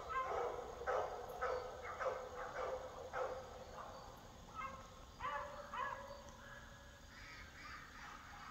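Animal calls: short pitched calls repeated in quick bouts, with a lull in the last couple of seconds.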